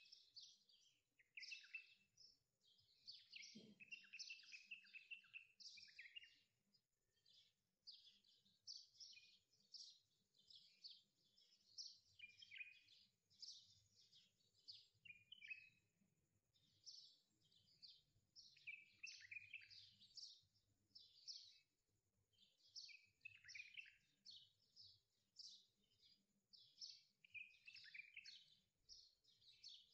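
Faint birdsong: many birds chirping and twittering in quick, overlapping short calls, with no let-up. One soft low thump comes a few seconds in.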